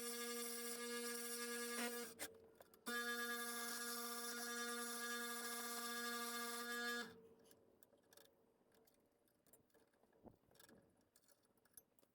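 Small high-speed electric power tool running with a steady whine while cutting a hole for a gauge. It stops briefly about two seconds in, runs again, then stops for good about seven seconds in, leaving faint small clicks and taps.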